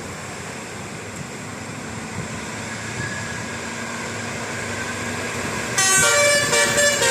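Road and engine noise slowly growing louder, then about six seconds in a bus's telolet basuri musical horn starts loudly, playing a tune of quickly changing notes.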